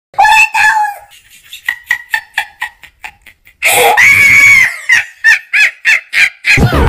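Comic chicken-like clucking and squawking sound effect: a squawk at the start, a quick run of short clucks, one long squawk about four seconds in, then more clucks.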